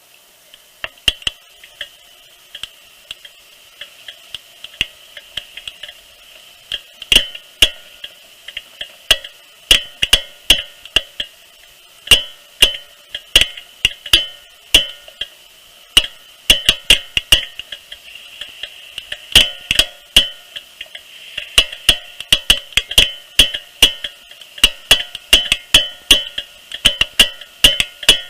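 Sharp, irregular clicking from the front wheels of a 2013 Subaru XV, several clicks a second and getting denser later on, over a steady faint hum. The owner is unsure whether a worn wheel bearing or a drive axle is the cause.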